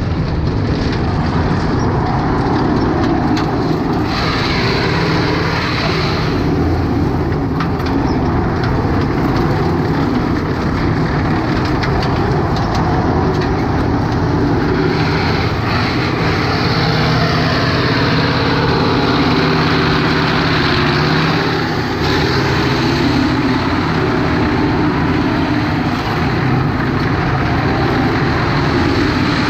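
M-84 main battle tank's V12 diesel engine running loud and steady as the tank drives over gravel, with the steel tracks clattering and crunching underneath.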